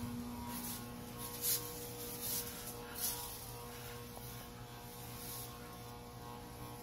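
A steady low electrical-sounding hum with several even tones, with a few faint brief rustles on top.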